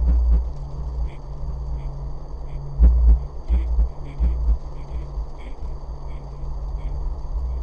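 Horror-film sound design: a low steady drone with deep, irregular bass thumps and a thin high whine held above it.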